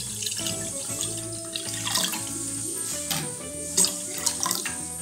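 Water poured in a steady stream into a stainless steel bowl, splashing as it fills, over background music.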